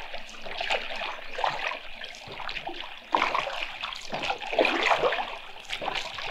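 Oars of a rowboat dipping and splashing in the water, with dripping and trickling between the strokes; one stronger splash comes about three seconds in.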